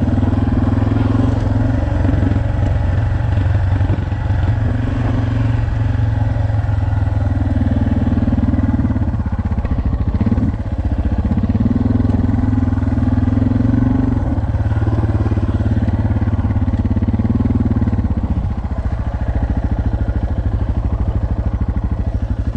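Suzuki DR650's single-cylinder four-stroke engine running on a dirt trail, the throttle opening and closing. The engine note eases off about three-quarters of the way through.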